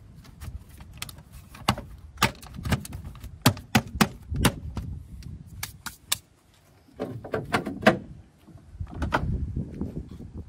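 Plastic engine cover on a VW TSI engine being pressed and knocked down onto its mounts: a run of sharp clicks and knocks. Near the end, scuffing and rattling as the bonnet is handled and lowered.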